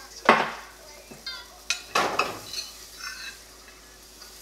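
Cookware and utensils clattering at the stove: two loud knocks, one about a third of a second in and one about two seconds in, with lighter clinks of metal between and after.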